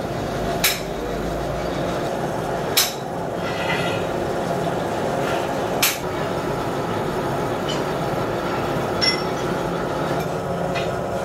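Gear hobbing machine running steadily as its hob cuts helical teeth into a green gear blank, with four sharp clicks every two to three seconds.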